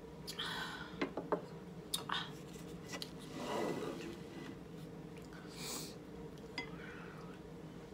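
A ceramic bowl and wooden spoon being handled at a table: a few light knocks and clicks and two short scraping sounds, over a faint steady hum.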